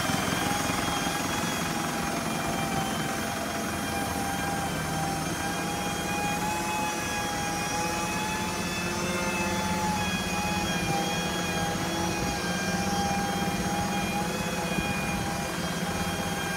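Mitsubishi Canter's 4M50 four-cylinder turbo diesel idling steadily, a low rumble with a steady high whine over it.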